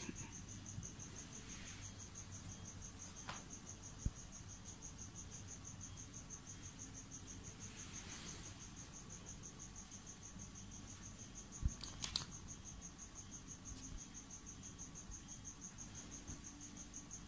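A cricket chirping steadily in an even, rapid pulse, with a few short knocks about four seconds in and again near twelve seconds.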